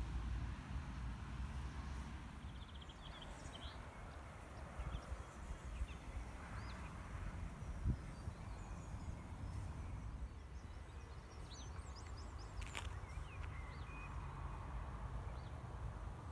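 Outdoor ambience: a low wind rumble on the microphone, with many short bird chirps and calls scattered through it. There are two sharp clicks, about eight seconds in and again near thirteen seconds.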